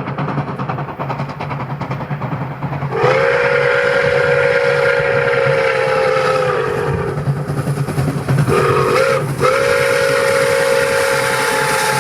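Pere Marquette 1225, a 2-8-4 Berkshire steam locomotive, runs with a steady low rumble. About three seconds in it starts blowing its steam whistle: one long blast, a brief break, then another long blast.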